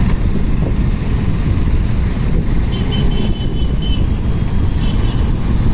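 Motorcycle riding noise as picked up by a helmet-mounted phone: a dense, steady low rumble of engine and wind buffeting as the bike pulls away from a traffic signal. Faint short high tones come through twice, around the middle and near the end.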